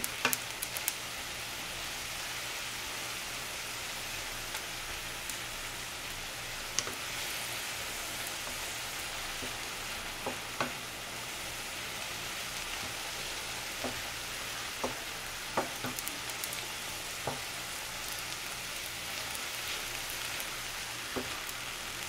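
Julienned radish sizzling steadily in a frying pan as it is stir-fried, cooking down in the water it releases. A few light, irregular clicks of a wooden spatula against the pan.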